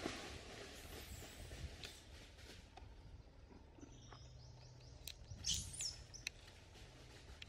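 Faint outdoor ambience with light rustling and clicks, and a few thin, high-pitched chirps about four and five and a half seconds in.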